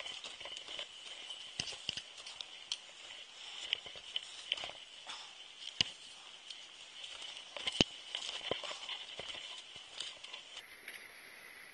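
Footsteps crunching in snow on a mountain trail, an irregular run of short crunches and clicks.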